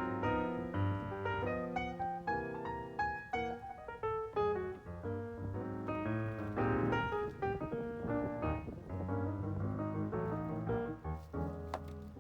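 Background piano music: a busy melody of quick notes over bass notes.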